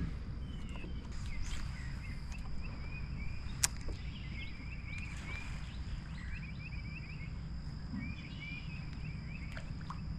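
Open-air ambience: a low steady rumble like wind on the microphone, with small birds chirping in short bursts and a faint steady high whine. A single sharp click stands out about three and a half seconds in.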